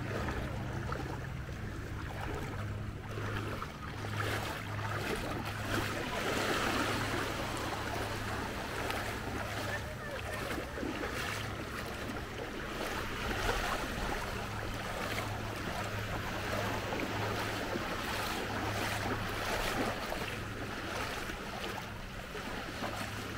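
Small waves lapping and water washing in shallow sea water, with wind rumbling on the microphone.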